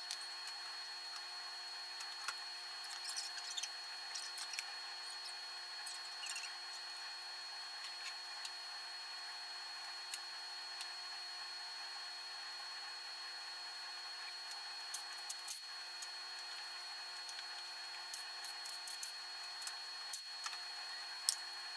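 Faint steady shop hum with scattered light clicks and taps from hand tools and parts being handled on an engine block.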